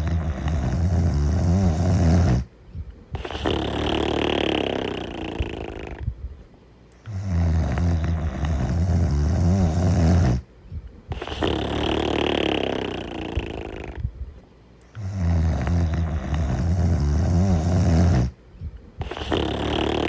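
A cartoon dog snoring. A low buzzing in-breath snore of about three seconds is followed after a short pause by a longer breathy, hissing out-breath, and the cycle repeats about every eight seconds.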